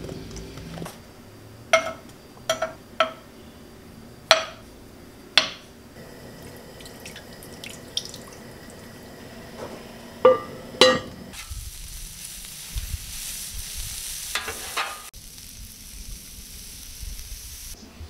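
Kitchen cooking sounds: several sharp knocks and clatters of cookware, then dumplings sizzling in a hot frying pan, a steady sizzle that starts abruptly and cuts off after about six seconds.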